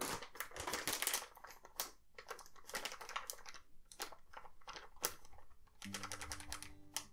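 A bag of potato starch crinkling as it is handled and shaken, the powder pouring into a stainless steel bowl: a dense run of crackles and rustles. Acoustic guitar music comes back in near the end.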